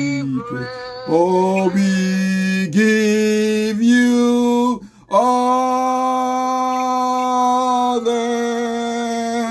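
A man singing a slow worship song, drawing out each syllable and sliding between notes, then holding one long, steady note for the last four seconds or so.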